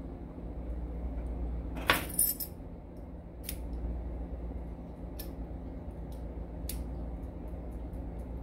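Small metal parts of an Evva 3KS lock cylinder clicking and clinking as they are handled during reassembly: a quick cluster of sharp clinks about two seconds in, the loudest sound, then single clicks about a second apart and a few fainter ticks near the end, over a steady low hum.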